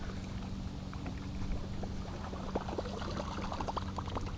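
Water splashing in short, irregular bursts beside the boat as a fishing lure is swept through the surface, the splashes coming more often in the second half, over a steady low hum.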